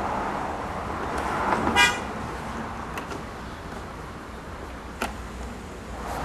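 A short horn toot about two seconds in, over steady background noise, followed by two sharp clicks.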